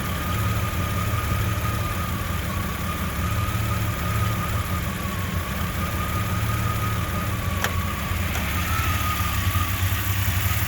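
Jeep Comanche's 4.7-litre stroker straight-six idling roughly, a steady low rumble with a thin faint whine over it. One sharp click about eight seconds in.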